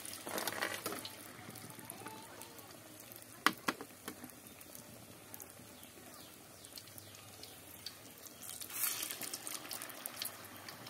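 Batter fritters deep-frying in a wide metal wok of hot oil: a steady sizzling hiss that flares louder twice, about a second in and again near the ninth second. A single sharp click sounds about three and a half seconds in.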